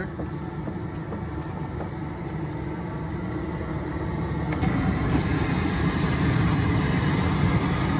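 Propane burner of a crawfish cooker running under a pot of boiling water, a steady low roar that grows somewhat louder about halfway through.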